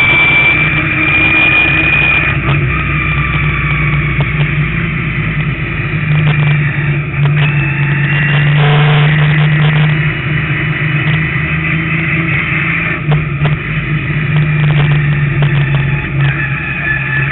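Street Stock race car's engine running hard on a lap of a short oval, heard from a camera on the hood. It holds a steady pitch, easing and picking up again through the turns.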